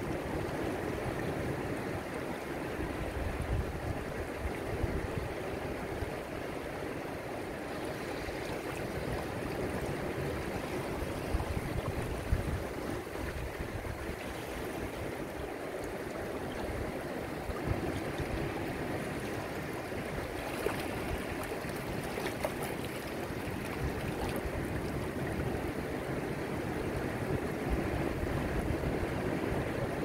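Shallow sea water washing and trickling over flat rocks and sand at the water's edge: a steady, even rush of moving water with small splashes.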